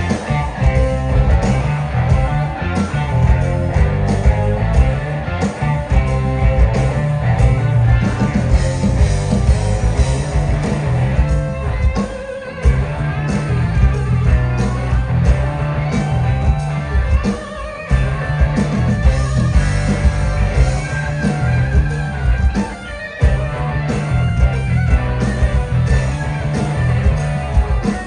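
Live blues-rock band playing through a PA: electric guitar playing lead over bass and drums with a steady beat. The band drops out briefly twice, around twelve seconds and around twenty-three seconds.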